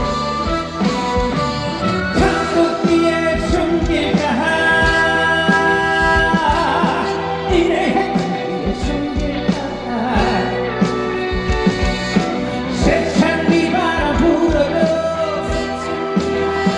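Trot song performed live: a male singer holding long, wavering sung notes over backing music with a steady drum beat and bass.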